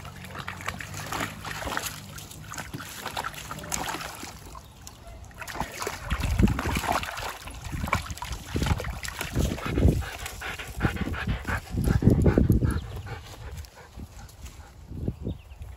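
Dogs panting and scuffling close by, with many quick rustles and clicks. A run of heavy low thumps in the middle is the loudest part.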